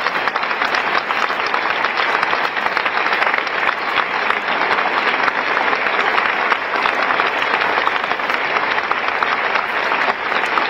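A wide, shallow river rushing over a stony bed: a steady, dense splashing hiss made of many small crackles.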